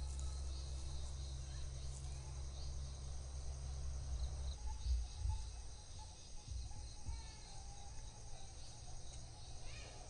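Forest ambience: a steady, high-pitched chorus of insects. Under it a low rumble runs through the first half and breaks into a few low thumps about halfway through before fading.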